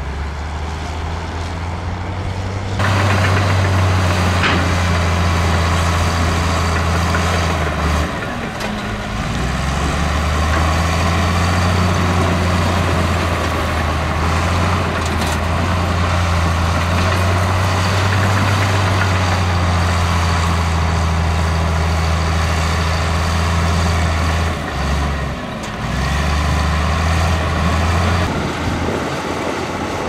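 Heavy diesel engine of earthmoving equipment running steadily, its note dropping out briefly about eight seconds in and again about twenty-five seconds in. A loud, even rushing noise sits over it from about three seconds in.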